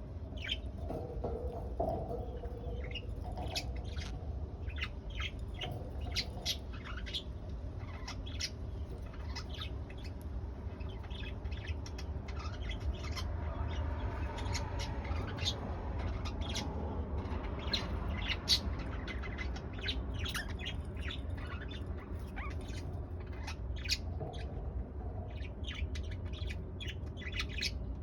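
Pet budgerigars chirping, with many short chirps and squawks following one another, over a steady low hum.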